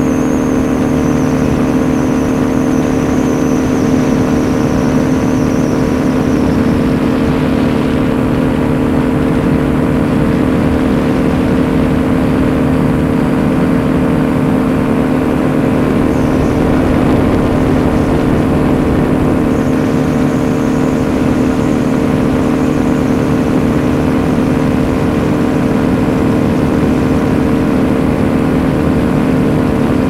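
Paramotor engine and propeller running steadily in flight, at an even pitch with no change in throttle.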